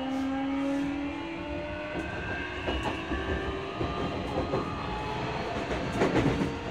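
Nishitetsu 9000 series electric train heard from inside the car: the whine of its Toshiba hybrid-SiC IGBT-VVVF inverter and enclosed fan-cooled induction motors slowly falling in pitch as the train slows, over wheel and rail rumble. Near the end comes a short, louder clatter of the wheels over rail joints.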